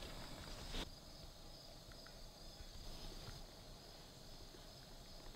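Faint, steady, high-pitched chirring of crickets in the woods. A soft hiss stops abruptly under a second in.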